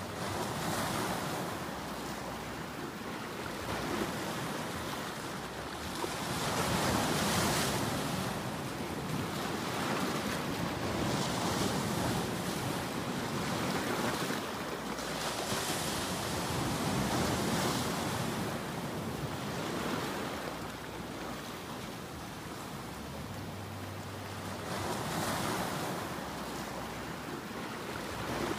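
Ocean waves breaking on a rocky ledge: a continuous surf wash that swells and falls back in surges every few seconds.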